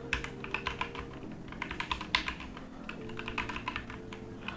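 Typing on a Digital Alliance Meca Air mechanical keyboard: a fast, uneven run of key clicks. The keys are light to press, and the typist takes the switches for red switches.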